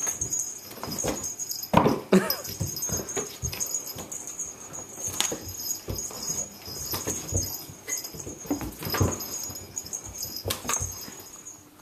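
Cat playing with a wand toy on a wooden floor: a run of irregular thumps and scuffles as it pounces and scrambles, with a high thin tone coming and going.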